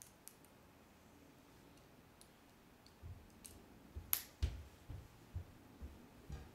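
Lego bricks being handled and pressed together: scattered sharp plastic clicks and soft knocks, with the loudest click about four seconds in.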